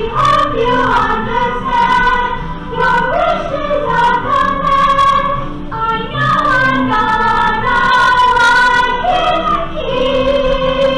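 Several young female voices singing a musical-theatre number together, with sung lines moving over steadier held notes.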